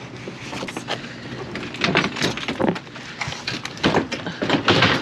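A dishwasher being tipped over and turned on concrete: a run of scrapes, knocks and rattles from its cabinet, loudest in the second half.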